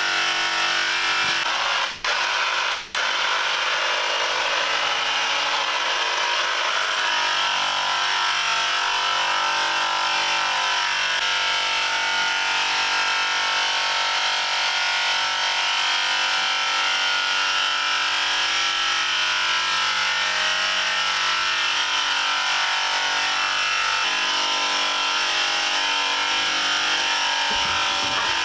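Electric paint sprayer running steadily, a constant motor buzz with spray hiss, cutting out briefly twice about two to three seconds in.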